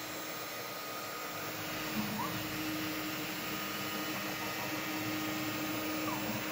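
Homemade CNC milling machine test-running: a steady mechanical whine from its drive motors as the spindle carriage travels along the gantry. It picks up about two seconds in with a short rising chirp as the motor speeds up, and ends near the end with a short falling chirp as it slows.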